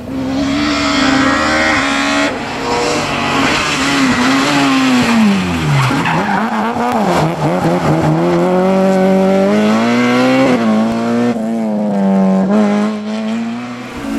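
Rally car engine on a tarmac stage: it comes off the throttle and its pitch falls as it slows for a tight corner, the tyres squeal as it slides through, then it accelerates away with rising revs and a gear change about ten and a half seconds in.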